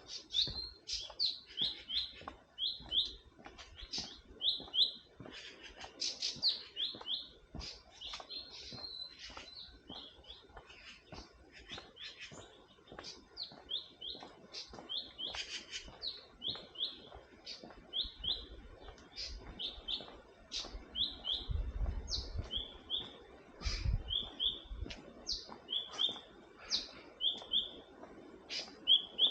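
Forest birds chirping: many short, high notes repeating all through, often in quick pairs. A brief low rumble comes twice, about two-thirds of the way through.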